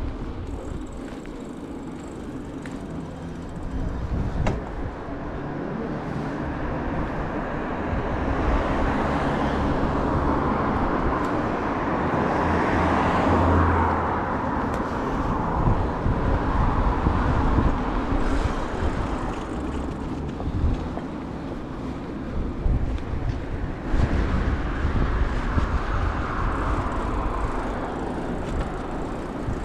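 City road traffic: cars passing on a wide street, the tyre-and-engine noise swelling and fading twice, over a constant low rumble.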